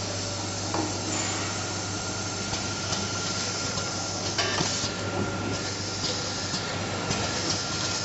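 Automatic pneumatic screw-driving machine running: a steady mechanical hum with a thin constant whine, scattered clicks and knocks, and a short burst of compressed-air hiss about four and a half seconds in.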